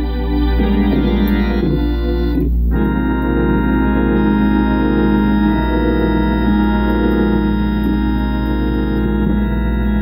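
Hammond organ playing sustained gospel chords, changing chord about two and a half seconds in and then holding long notes.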